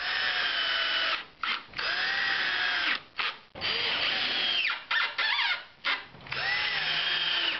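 Cordless drill driving screws into MDF: four runs of motor whine about a second long each, the motor slowing and dropping in pitch at the end of each run, with short blips of the trigger in between.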